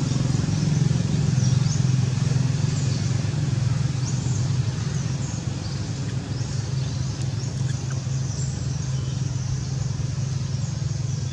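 A steady low motor drone, easing off slightly toward the end, with short high chirps sounding over it.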